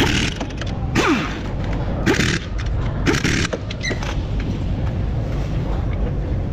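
Impact wrench fired in four short bursts about a second apart, several of them winding down with a falling whine, as it loosens the front hub bearing's mounting bolts; a steady low hum runs underneath.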